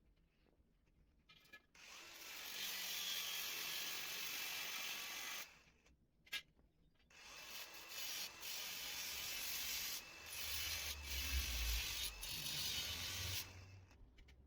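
A tool working metal: a steady rasping noise in two long stretches, the first about three and a half seconds long and the second about six, with a low hum under the later part of the second.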